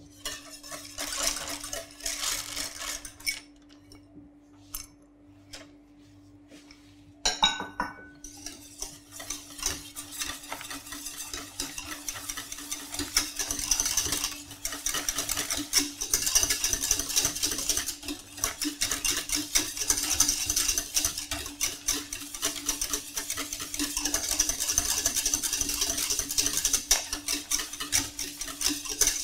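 Wire whisk stirring chocolate pastilles into hot ice-cream base in a stainless-steel saucepan. It starts with scattered light clinks, then from about eight seconds in becomes a fast, continuous metallic scraping and clattering against the pan. A steady hum runs underneath.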